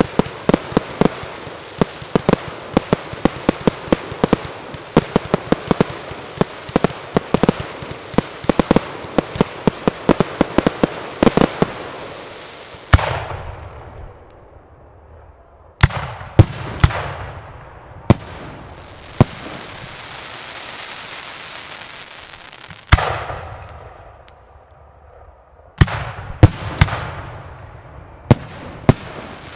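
Fireworks display: a rapid barrage of sharp bangs, several a second, for about the first twelve seconds, then single heavy aerial shell bursts a few seconds apart, each trailing off in a long rolling echo, with a quick cluster of reports near the end.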